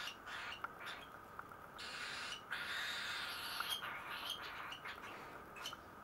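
Baby cockatiels giving hissing begging calls while being fed from a syringe: a string of short calls, with a longer one about two seconds in.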